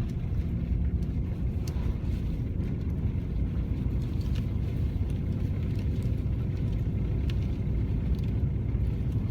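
Four-wheel-drive pickup truck on the move, heard from inside the cab: a steady low engine and road rumble.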